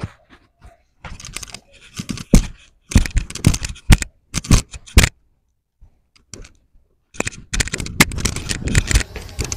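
Irregular bursts of scraping and rustling, a fraction of a second to a second long, broken by moments of dead silence, growing denser in the last couple of seconds.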